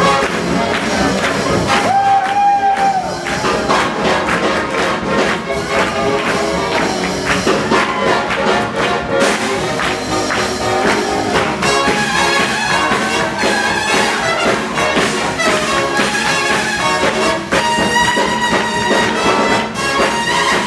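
Live swing jazz band playing an up-tempo dance number: trumpets and other brass over double bass and drums, with a steady beat and horns holding long notes about two seconds in and again near the end.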